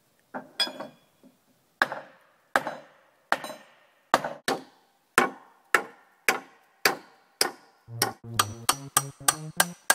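A run of sharp, separate knocks with short ringing tails. They start unevenly and settle to about two a second. About eight seconds in, synthesizer music with a steady beat comes in underneath.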